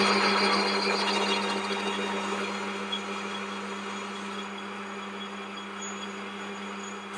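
Metal lathe running with a steady motor hum while an insert tool takes a light skim cut over the spinning workpiece. The cutting hiss fades over the first few seconds.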